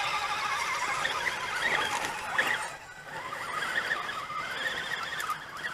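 High whine of 1/10-scale RC crawler trucks' electric motors and gear trains working on a steep climb, wavering up and down in pitch with the throttle and dipping briefly about three seconds in.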